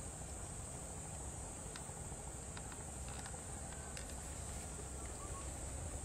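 A steady, high-pitched insect chorus, crickets by its sound, over a low rumble, with a few faint scattered ticks.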